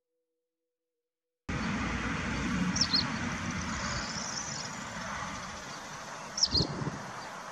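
Silence, then outdoor ambience that starts abruptly about a second and a half in: a steady rushing noise with two short bird chirps, the second near the end together with a brief low bump.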